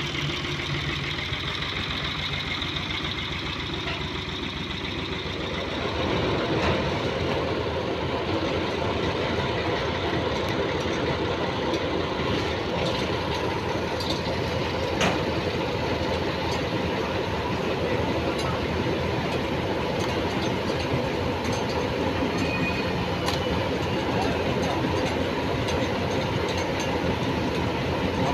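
Old farm tractor's engine running steadily, getting louder about six seconds in.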